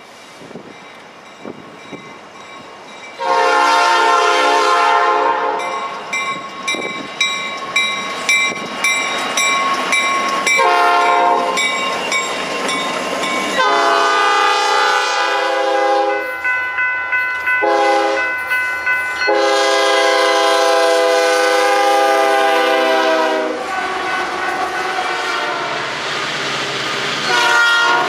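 Diesel freight locomotive's air horn, sounding a chord in a series of long and short blasts as the train approaches and passes, with regular clicking of wheels on the rails between the first blasts. Right at the end another locomotive horn starts.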